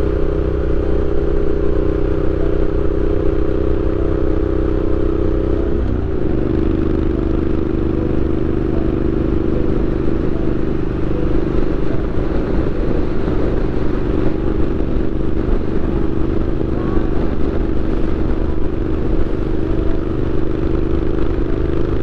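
Triumph Street Scrambler 900's parallel-twin engine running through an aftermarket Zard exhaust at steady cruising revs. Its note changes once, about six seconds in.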